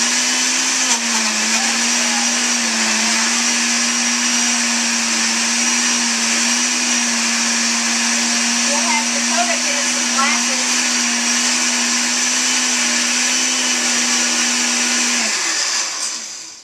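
Countertop glass-jar blender running steadily at one pitch, blending spinach, banana and coconut milk into a green shake; it is switched off about a second before the end and the motor spins down.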